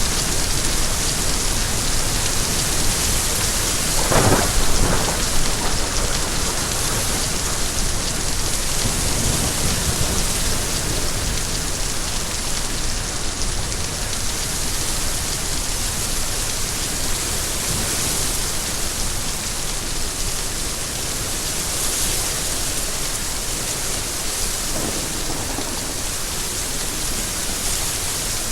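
Steady rain falling, with a brief louder burst about four seconds in and a fainter one near the end.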